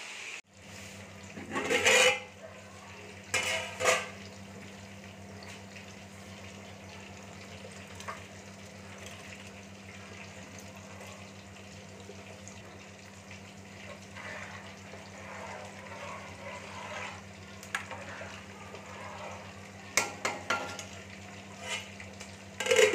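Metal utensils and a metal container clinking against a hammered aluminium cooking pot as soaked rice is tipped in and worked with a ladle. There are sharp clinks about two and four seconds in and a run of them near the end, over a steady low hum.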